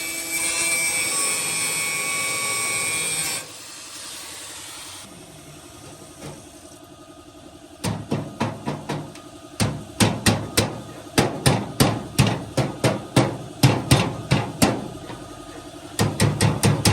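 Background music for the first few seconds, then hammer blows: sharp repeated strikes in quick runs of several a second, starting about eight seconds in.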